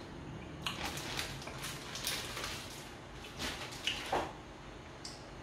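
A person chewing a piece of frozen mango, with a scattering of soft mouth clicks and smacks over the first four seconds.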